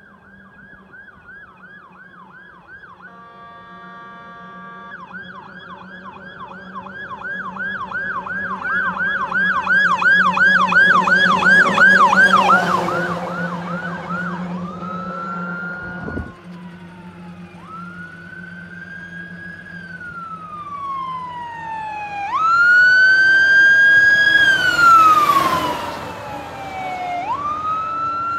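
Fire apparatus sirens on an emergency response: a fast yelp siren, broken about three seconds in by a two-second steady horn blast, grows loud as the truck passes. The siren then switches to a slow rising-and-falling wail as the truck moves off, and a wail grows loud again about three-quarters of the way through. A truck engine hums steadily underneath.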